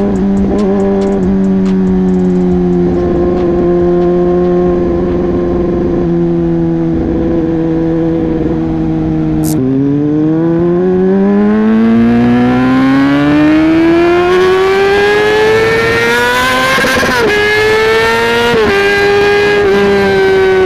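Honda CB650R's 649 cc inline-four engine running at speed: a steady note for about nine seconds, then the pitch drops suddenly and climbs steadily for about seven seconds as the bike accelerates hard to high revs. Two brief dips in pitch come near the end, and then it holds a high note.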